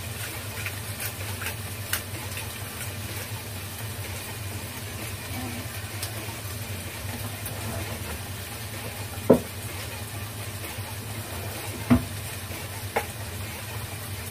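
Shrimp and mushrooms sizzling in a pot on the stove, a steady hiss, with a few light knocks, the loudest about nine seconds in.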